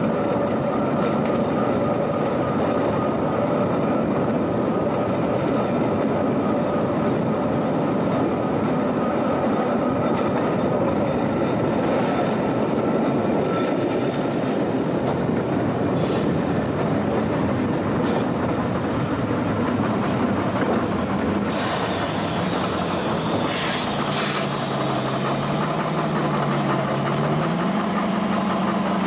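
Opicina tramcar running along its track: a steady rumble of wheels on rails and the car's running gear. In the last third a low hum from the car drops and then rises again in pitch as it draws up to a stop.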